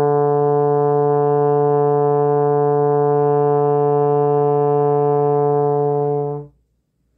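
Trombone holding one long, steady D in fourth slide position, the D in the middle of the bass clef; the note is released about six and a half seconds in.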